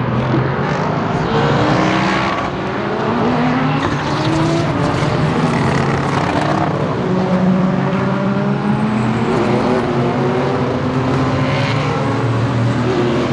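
A pack of IMSA race cars, prototypes and GT cars, running together past the spectator fence. Several engines sound at once, their pitches climbing again and again as the cars accelerate through the gears.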